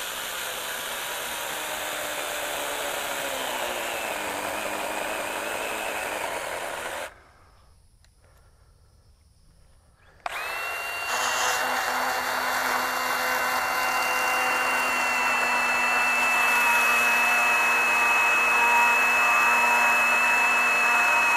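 BeiHong 21V cordless 6-inch pruning chainsaw cutting through a log, its motor pitch sagging under load; it stops about seven seconds in. After a few seconds of near silence, a Milwaukee M18 FUEL 8-inch pruning chainsaw starts and cuts the log with a louder, steady high whine that holds its pitch.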